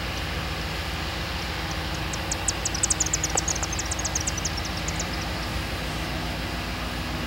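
Jordan spreader's steel wing blade scraping ballast along the track shoulder: a steady grinding rush of gravel over a low, steady machine hum. From about two to five seconds in, a flurry of sharp clicks and crackles as stones rattle against the blade.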